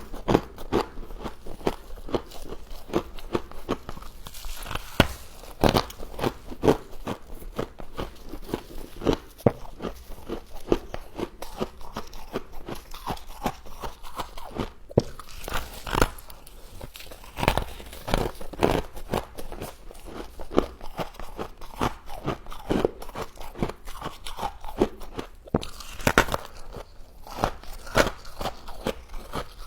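Close-up crunching of someone biting and chewing humidifier frost: dense, irregular crisp crunches, several a second.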